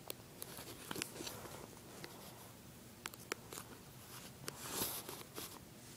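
Guinea pig nosing and rubbing against a phone held at its face: scattered sharp clicks and soft rustling, with a louder brushing rustle about five seconds in.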